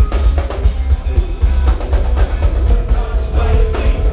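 Loud live band music from the stage, led by a drum kit with a heavy kick drum and snare over deep bass.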